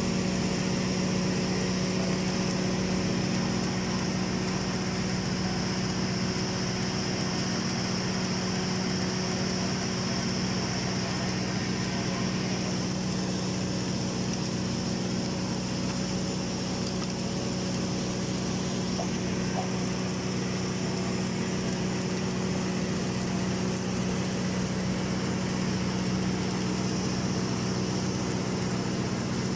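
Automatic girth welding machine running a submerged-arc cap pass along a tank seam: a constant low hum with a steady hiss above it.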